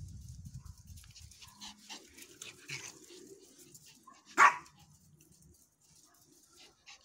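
A dog barks once, sharply and loudly, about four and a half seconds in, with faint rustling in the seconds before it.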